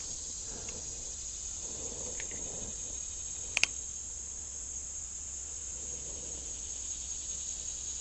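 Steady high-pitched chorus of insects, with one brief sharp click about three and a half seconds in.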